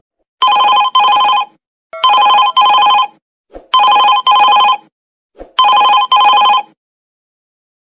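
Telephone ringing in a double-ring pattern: four ring-rings at an even pace, then it stops.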